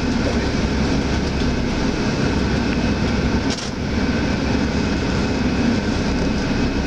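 Cabin noise of a Hyundai Universe Space Luxury coach rolling slowly: a steady engine drone, with a brief hiss about three and a half seconds in.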